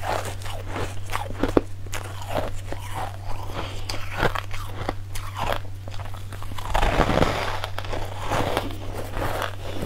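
Close-miked biting and crunching of soft, snow-like ice being chewed, a rapid run of crisp crunches with the loudest cluster about seven seconds in.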